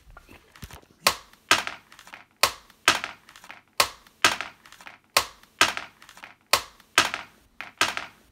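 Sharp, hard knocks in pairs, the two knocks about half a second apart. The pairs repeat at an even pace about every second and a half, six times over.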